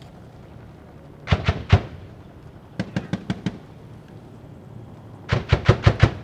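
Three short bursts of automatic fire, several shots each, from AAV7 amphibious assault vehicles' 40 mm automatic grenade launchers and heavy machine guns.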